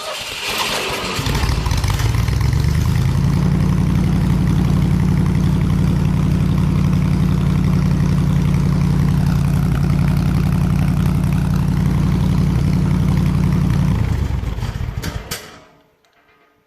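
Engine of a 302-based air compressor starts about a second in, runs steadily at a constant speed with an even low hum, then is shut off and runs down at about 14 seconds, with a few clicks as it stops.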